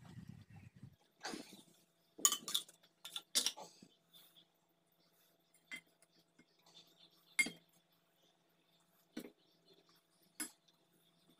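A steel spoon clinking against a stainless steel pot as curry is spooned out, with a cluster of sharp clinks about two to three and a half seconds in and then single clinks every second or two.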